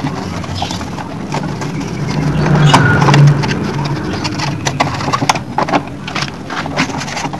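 Plastic casing panels of a split air conditioner's indoor unit knocking and clattering as they are handled, a string of sharp clicks and taps. A low hum swells and fades about halfway through.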